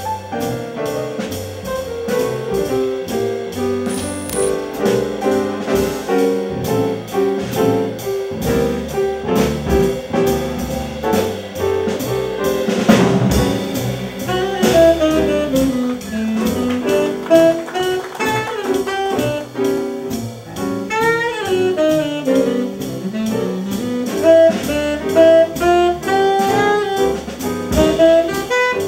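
Small jazz combo playing live: piano, double bass and drums. After a loud drum accent about halfway through, a saxophone comes in with a flowing melodic line over the band.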